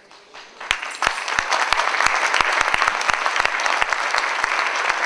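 Theatre audience applauding. The clapping starts about a second in and holds steady.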